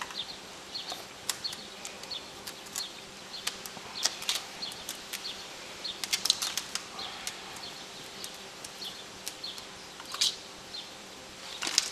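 A kitten's claws hooking into and pulling free of curtain fabric as it clambers on it: irregular light scratches and rustles, a few a second.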